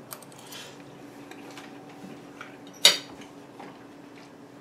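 A metal fork clinking on a plate: a few faint small clicks, then one sharp clink about three seconds in. A faint steady hum runs underneath from about a second in.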